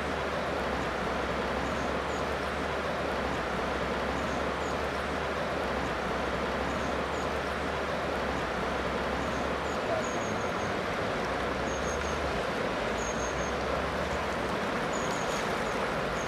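Steady rush of a mountain river's flowing water, with faint, short high chirps now and then.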